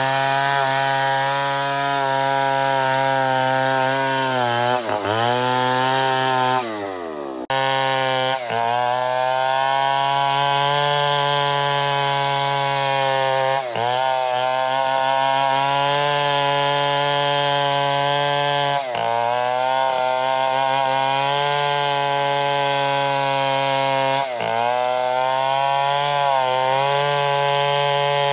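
Stihl 070 two-stroke chainsaw running at high revs while ripping a merbau log lengthwise into planks. The steady engine note dips briefly in pitch every few seconds as the chain bites under load. About a quarter of the way in it sags sharply and then cuts back in abruptly.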